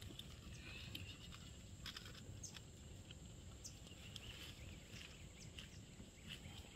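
Faint outdoor ambience: low, even background noise with a few faint, short, high chirps and small clicks scattered through it.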